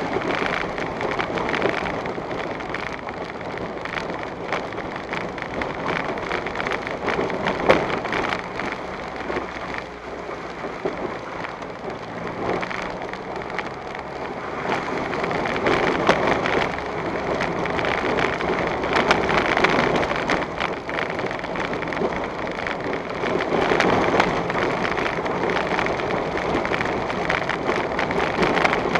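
A vehicle driving at about 25 km/h over a rough, rutted dirt road, heard from a dashcam inside the cab: steady running and tyre noise full of small knocks and rattles from the bumps.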